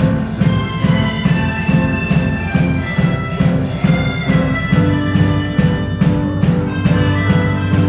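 Instrumental music with a steady beat, about three strokes a second, under a melody of short notes and a heavy bass line.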